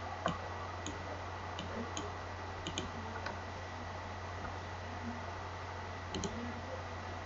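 A handful of soft computer mouse clicks, some in quick pairs, over a steady low hum and hiss of room and microphone noise.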